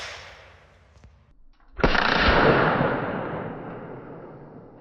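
One gunshot from a Chiappa Rhino 60DS revolver fitted with a steel muzzle brake and match weight, just under two seconds in, followed by a long echoing rumble that fades slowly. The echo of a previous shot is still dying away at the start.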